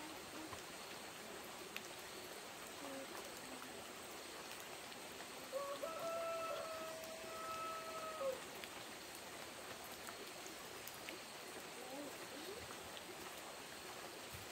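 Steady outdoor hiss like running water or light rain. About six seconds in, a single high held call or whistle lasts nearly three seconds, with a few faint short chirps around it.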